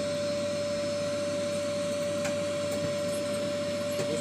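Vacuum cleaner running steadily, its motor giving one strong, steady whine over an even rushing noise, with a couple of faint clicks.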